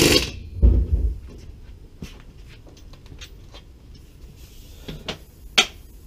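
Handling noises from work at a car wheel: a loud scuff at the start, heavy low thumps about a second in, then scattered light clicks and one sharp clack near the end.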